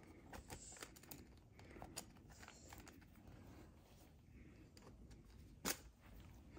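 Faint scattered clicks and taps of hands working at toy packaging, with one sharper click about five and a half seconds in.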